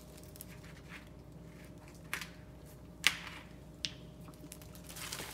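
Light handling noises from a plastic soda bottle and a plastic oven bag: a few short, sharp clicks and taps, the sharpest about three seconds in, then plastic rustling near the end.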